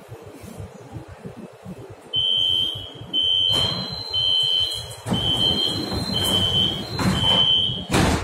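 Metro train door-closing warning: a high electronic beep repeated six times, about one a second, while the sliding doors close, ending in a sharp bang as the doors shut.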